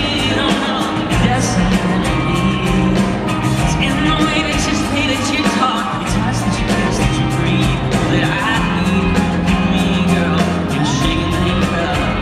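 Live band performance: a male lead voice singing over a full band with a steady drumbeat and held bass notes, loud and unbroken.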